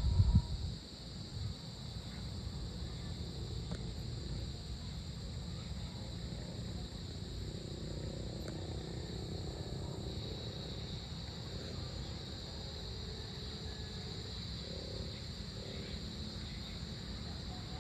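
Evening insects, crickets among them, keeping up a steady high-pitched drone over a low outdoor rumble. A brief loud low buffet hits the microphone in the first second.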